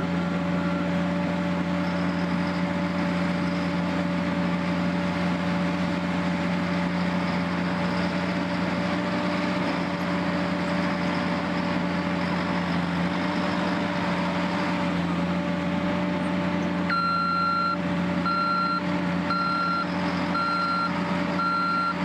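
Engine of a military backhoe loader running steadily while its backhoe arm digs. About three-quarters of the way through, a reversing alarm starts beeping regularly, about once a second.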